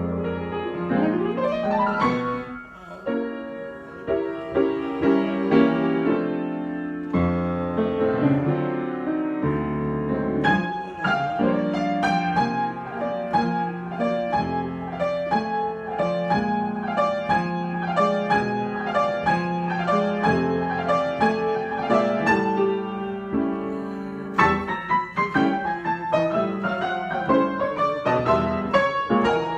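Solo piano improvisation: chords and melody with a steady stream of struck notes, and quick runs of notes near the end.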